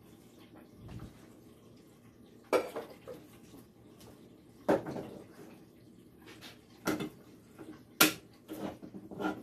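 Kitchen clatter at a slow cooker as stewed tomatoes are added: four sharp knocks and clinks of utensils and cans against the pot over several seconds, the loudest about eight seconds in, with a few lighter clicks near the end.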